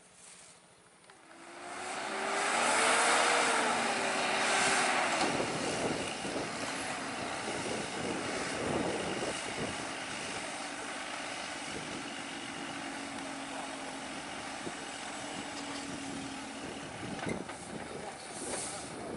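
A heavy truck's engine working under load. It swells in loudness about a second and a half in, its pitch rises and then falls, and it settles into a steady drone.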